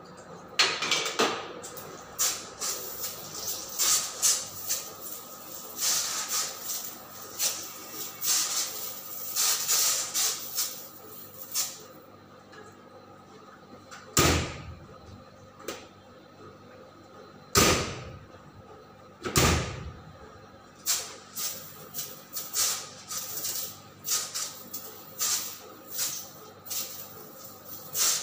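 Short hissing bursts of insecticide spray, repeated every second or so, and three loud knocks from a steel kitchen cabinet door being handled about halfway through, when the spraying pauses. A steady hum runs underneath.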